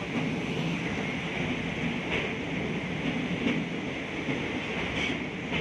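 Train running over a bridge, heard from aboard: a steady rumble of wheels on rail, with occasional short clacks.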